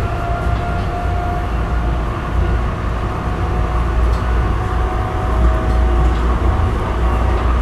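RTD light rail train running at speed, heard from inside the passenger car: a steady low rumble and running noise, with a faint thin whine for the first second or so.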